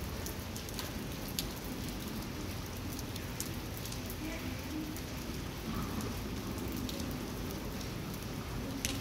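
Steady rain falling on a wet paved street, with scattered sharp ticks of single drops landing.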